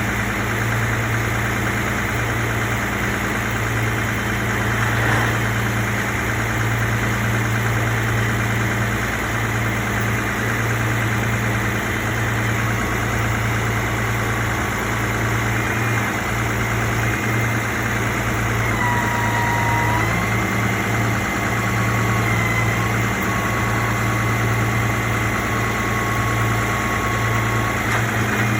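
Vehicle engine idling steadily with a constant low hum under a steady hiss. In the second half a faint thin high tone shifts up and down in pitch a few times.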